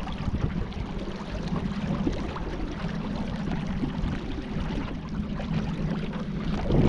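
Steady water noise around a kayak on the river, with many small splashes throughout.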